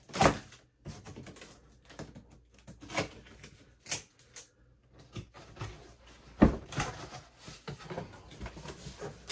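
Cardboard shipping box being opened and its packing handled: irregular knocks, scrapes and rustles of cardboard, the sharpest knock about six and a half seconds in.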